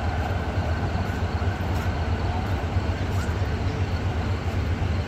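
Approaching diesel-electric locomotive running with a steady low engine drone under the general rumble of the train.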